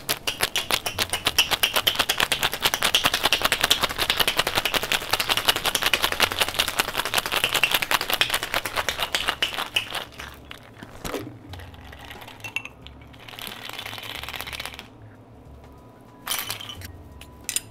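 Ice rattling fast and hard inside a metal cocktail shaker for about ten seconds as a fizz cocktail is shaken. After that come a few knocks as the shaker is opened, and a short pour of the strained drink into a glass.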